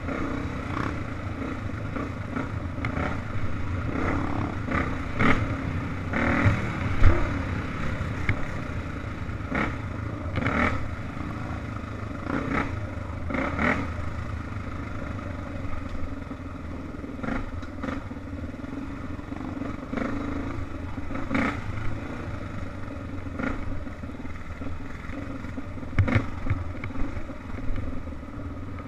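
Dirt bike engine running steadily while riding, with frequent irregular knocks and rattles as the bike goes over bumps in the trail.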